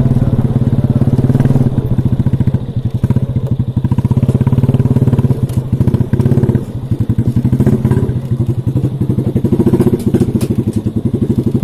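A small engine running steadily with a fast, even pulsing beat.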